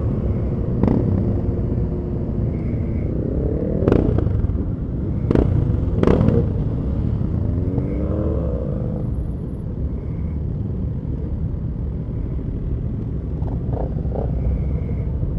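Group of motorcycles riding in city traffic: a steady low rumble of engines, with engines revving up and down twice, and a few sharp cracks, the loudest two in quick succession about five to six seconds in.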